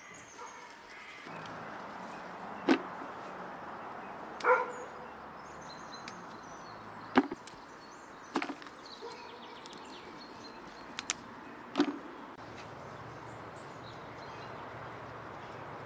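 Chili peppers being picked by hand into a plastic bucket: half a dozen sharp snaps and knocks a second or two apart.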